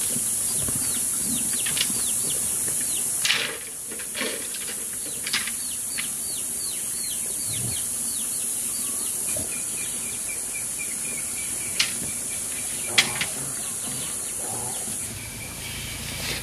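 Steady high-pitched insect drone with two runs of quick, falling bird chirps, and a few sharp knocks scattered through.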